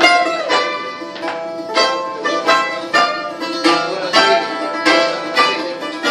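Greek bouzouki and guitar played together live, a plucked melody over strummed chords at a steady beat of about two strokes a second.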